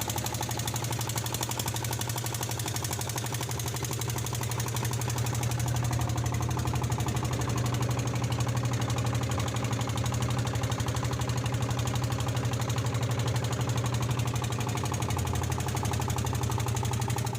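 Boat engine running steadily, with a fast, even knocking beat.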